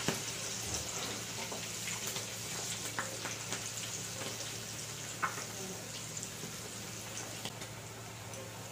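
Squash-and-cabbage okoy fritters with egg deep-frying in hot oil: a steady sizzle full of fine crackles, with a few sharper pops.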